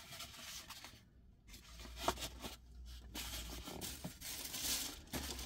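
Faint rustling and scraping of shopping packaging being handled and put aside, with two brief dead-quiet gaps.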